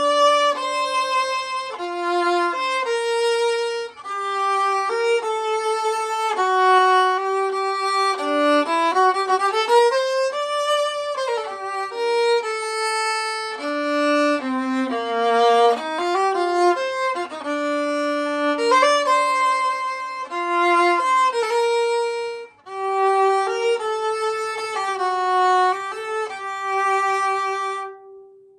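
Solo viola, a c1930 15.5-inch instrument labelled Stradivarius, bowed in a flowing melody of held and moving notes with a couple of brief breaks. It ends on a long held note that fades away.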